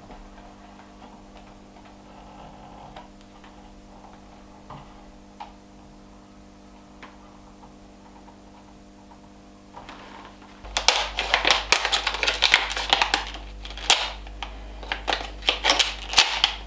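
Quiet workshop room tone with a steady low hum and a few faint ticks, then about two-thirds in a burst of loud, rapid clattering and clicking as small hard objects are handled and set down on a workbench.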